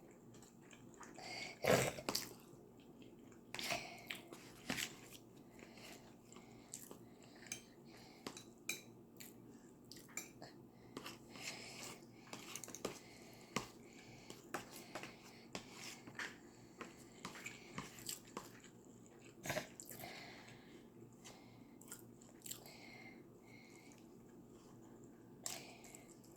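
Close-miked chewing and biting of food, with irregular wet clicks and crunches; the loudest bite comes about two seconds in.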